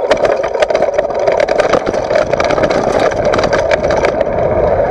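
Mountain bike rolling fast down rough dirt ground, heard from a camera mounted on the front fork: a steady rushing noise of tyre and wind, with rapid clatters and knocks as the bike and its air suspension fork bounce over bumps.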